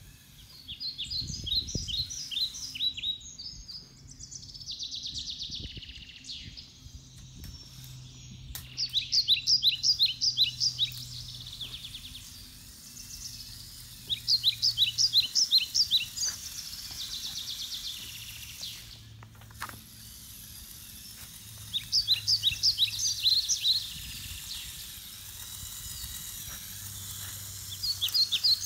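A songbird singing loud phrases of rapid repeated chirps, each phrase about two seconds long and coming back every six seconds or so, over a faint low steady hum.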